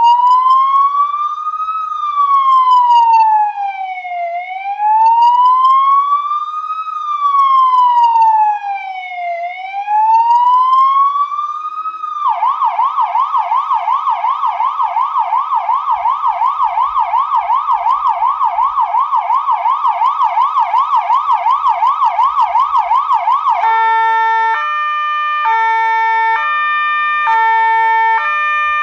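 Electronic police car siren cycling through its tones. It starts with a slow wail rising and falling about every five seconds, switches about 12 seconds in to a fast yelp of about four sweeps a second, and shifts near the end to a hi-lo two-tone alternating between two steady pitches.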